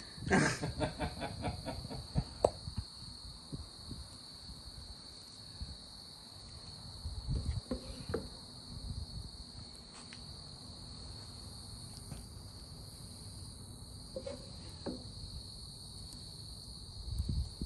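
Wooden spoon stirring and scraping through creamy shrimp sauce in a metal pan, with scattered clinks of utensils against the pan and plate. A steady, high-pitched insect chorus goes on underneath.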